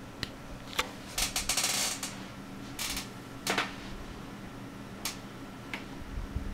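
A hand clicking and handling something at the front of a running computer case: a few sharp single clicks and a brief run of rapid clatter about a second in, over a steady low hum from the computer's fans and water pump.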